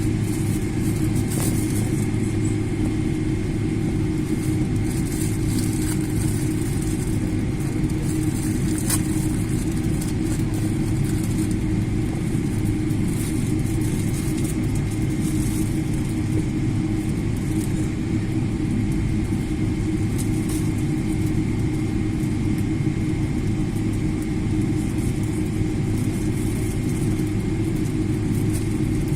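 Steady low drone of a parked airliner's running machinery during wing de-icing, with a thin steady high whine and now and then a faint brief hiss.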